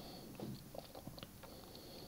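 Very quiet room tone with a few faint, short ticks scattered through it.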